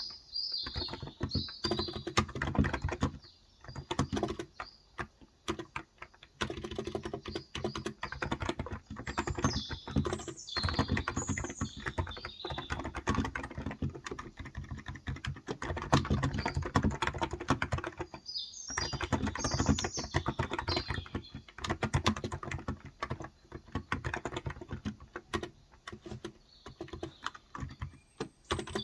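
Typing on a Cox Endeavor electro-capacitive tenkeyless keyboard with 35 g switches: quick runs of keystrokes with a lull a few seconds in. Birds chirp in short bursts now and then.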